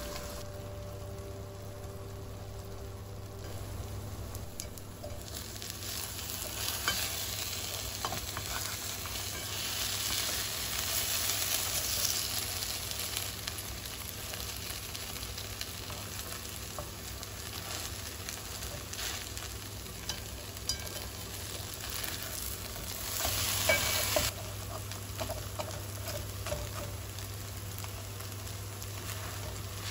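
Okonomiyaki batter of cabbage and oatmeal sizzling in a hot nonstick frying pan, with small clicks and scrapes of a spatula pressing it. A short, louder burst of sizzling comes late on, over a steady low hum.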